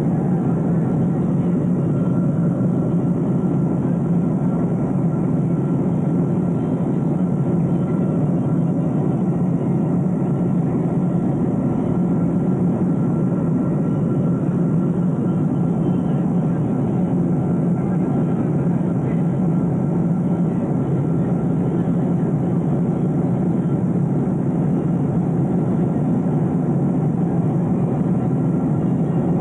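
Steady drone inside a jet airliner's cabin in cruise: engine and airflow noise, an even low rumble with a faint steady whine above it.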